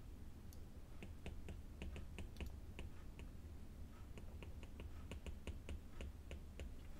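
Faint clicks and taps of a stylus writing on a tablet, several a second and unevenly spaced, over a low steady hum.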